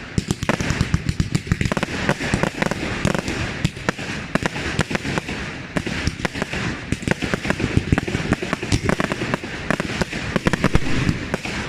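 Fireworks going off in quick succession: a dense, continuous barrage of sharp bangs and reports.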